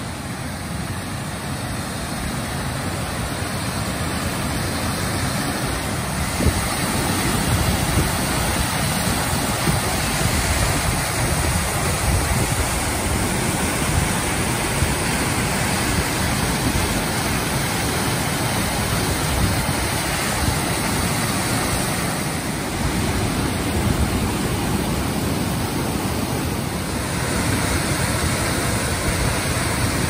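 A waterfall's steady rush of falling water, heard close alongside the falls, growing a little louder over the first few seconds and then holding level.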